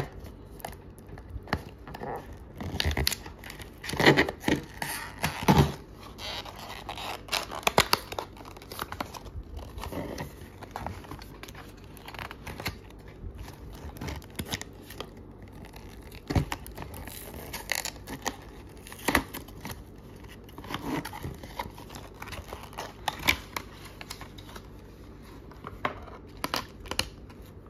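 A small cardboard retail box being opened by hand: flaps pried and torn open, then cardboard, paper and a clear plastic tray rustling and crinkling as they are handled. The sounds come in irregular scrapes and crackles, with a few sharper loud ones.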